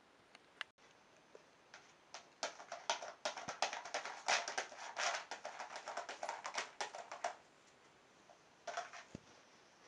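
A cat handling something on the floor: about five seconds of quick, crackly rustling and tapping, then a short burst of the same near the end.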